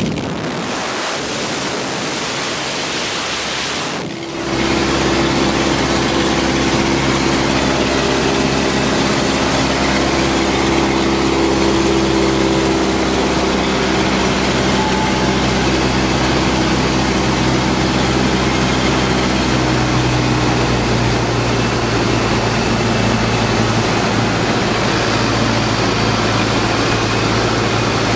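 The 180 hp four-cylinder engine and propeller of a Cessna 172 amphibian droning steadily, heard inside the cockpit with air rushing past. About four seconds in the engine note grows louder and holds as a steady hum.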